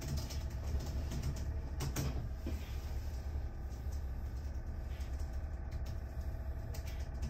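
Steady low background hum of a small room, with a few faint scattered clicks.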